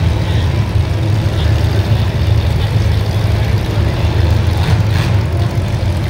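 Demolition derby car engines running together, a loud steady low rumble.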